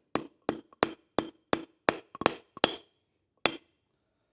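Hammer tapping a tight hydraulic cylinder gland and its seals down onto the piston rod: about nine sharp taps at roughly three a second, then one more after a short pause.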